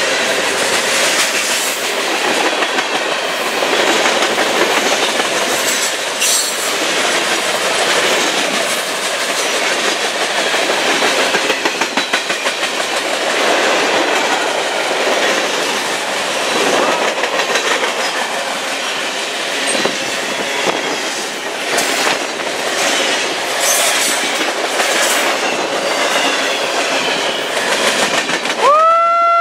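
Freight cars of a long CSX train rolling past close by: a steady rumble and clatter of steel wheels over the rail joints. A brief rising tone sounds just at the end.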